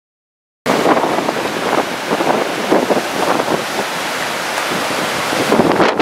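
Strong wind and surf washing onto a sandy beach: a steady rushing noise with gusts, starting suddenly about half a second in.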